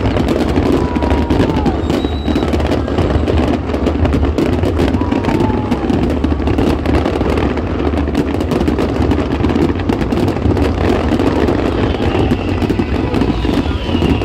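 Fireworks display going off without pause: dense, rapid crackling over a continuous rumble of bursts, with a few short falling whistles.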